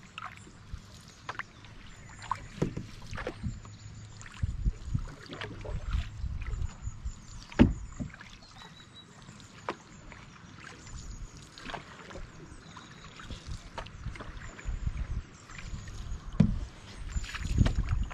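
Paddles dipping and pulling through river water from an open canoe, with scattered sharp knocks and splashes, the loudest about seven and a half seconds in. A low rumble comes and goes underneath.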